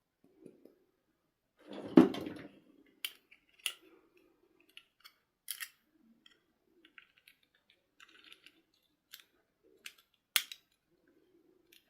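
Hands handling toy dolls and their packaging: a dull knock about two seconds in, then a scatter of sharp clicks and snips of plastic, with soft rustling between them.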